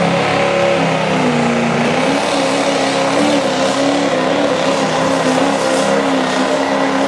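Diesel four-wheel-drive pickup's engine at full throttle under heavy load, dragging a pulling sled. The engine note steps up in pitch about a second in, then holds steady.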